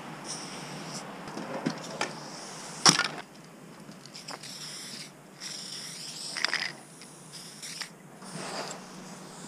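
Aerosol spray paint can hissing in short bursts as it is sprayed, with a single sharp knock about three seconds in.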